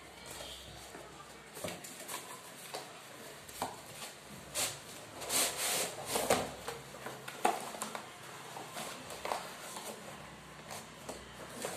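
Cardboard packaging being handled and opened by hand: scattered scrapes, taps and rustles, with a cluster of louder rasping tears and rubs near the middle.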